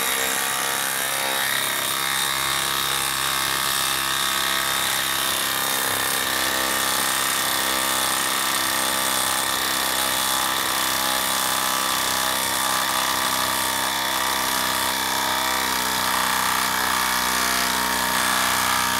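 Craftsman brushless impact driver hammering steadily as it drives a 4-inch lag screw into the end grain of a log round, under continuous load.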